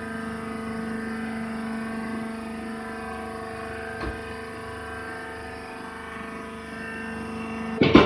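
Hydraulic press baler's power unit running with a steady, even hum. A light click comes about four seconds in, and a sudden loud knock just before the end.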